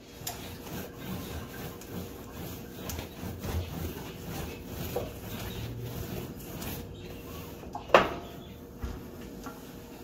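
Wet cloth being rubbed and scrubbed across a white enamel gas stovetop, a continuous rubbing and scraping with small taps. A single sharp knock comes about eight seconds in.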